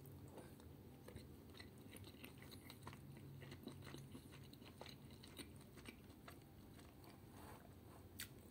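Faint chewing of a mouthful of canned tuna in green curry sauce, with scattered small clicks.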